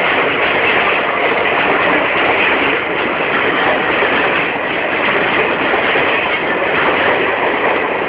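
Coaches of an express passenger train rolling slowly through a station behind an electric locomotive: a steady, loud noise of wheels on the track.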